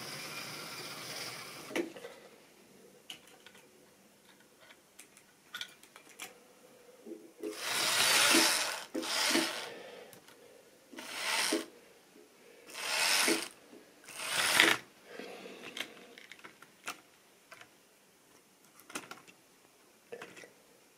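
A model train running steadily on the track for the first two seconds, then stopping. After that comes the clicking and scraping of a model steam locomotive and tender being handled and set on the rails by hand, with five loud scrapes from about eight to fifteen seconds in.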